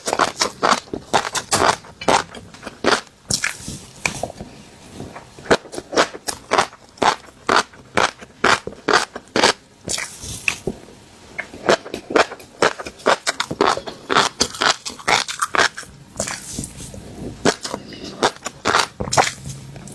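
Fish roe popping and crackling as it is crushed: a dense, irregular run of sharp little clicks and crunches.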